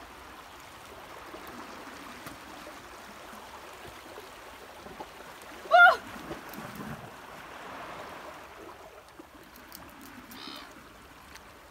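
Small waves washing over a rocky shore, a steady wash of water. Just before six seconds in comes one short, loud, high pitched cry.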